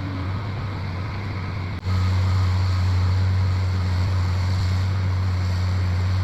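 Excavator engine running with a steady low drone; it breaks off for an instant nearly two seconds in and comes back louder.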